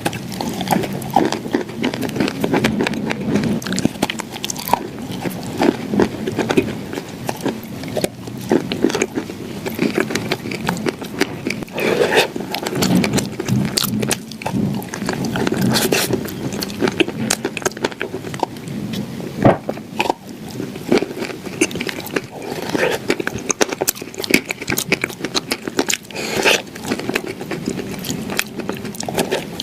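Close-up crunching and chewing of baked clay pieces shaped as shortbread cookies, with dense crisp cracks and crumbling throughout.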